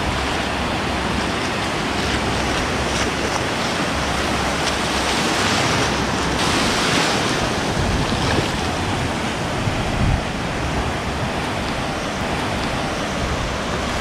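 Shallow sea surf washing in over flat sand and foaming around the feet: a steady rush of breaking waves that swells up about halfway through.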